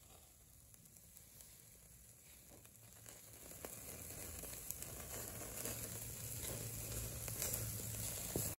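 Chicken breasts and hamburger patties sizzling on a charcoal grill, a steady hiss with small crackles. The sizzle grows louder from about three seconds in.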